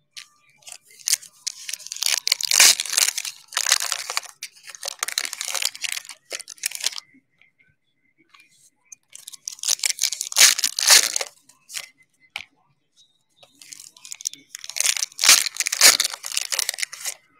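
Foil trading-card packs being torn open and crinkled by hand, in three bouts of crackly rustling with short pauses between.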